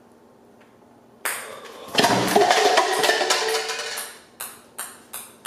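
A sudden loud burst about a second in, swelling into a louder two-second blast with held tones. Then a ping-pong ball bouncing on the table, its bounces coming faster and fainter as it settles.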